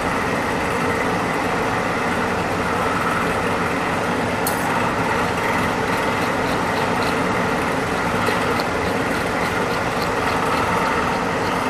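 Steady blowing drone of an electric blower motor, typical of a pet grooming dryer, running without change, with a single short click about four and a half seconds in.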